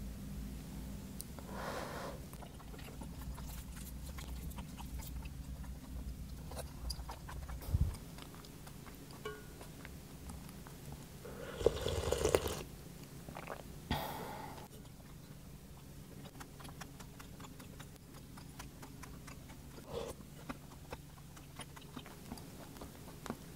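Eating sounds: a wooden spoon scooping and scraping fried rice in a ceramic bowl and stirring soup in a pot, with soft chewing and small clicks over a low steady hum. A few louder, brief noises stand out, the largest about twelve and fourteen seconds in.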